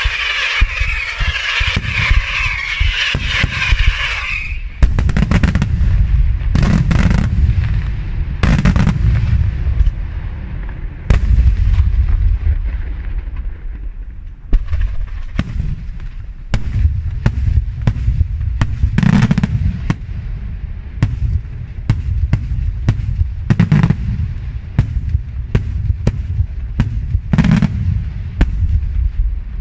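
Daytime aerial fireworks shells bursting in quick succession: many sharp bangs, one after another, over a continuous low rumble. A dense hiss fills the first four seconds.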